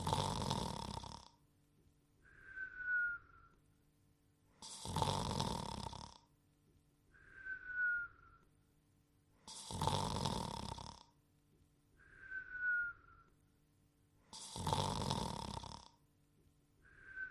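Cartoon snoring sound effect on a loop: a loud snore about every five seconds, and halfway between each pair of snores a short whistle that slides slightly down in pitch. Four snores and four whistles in all.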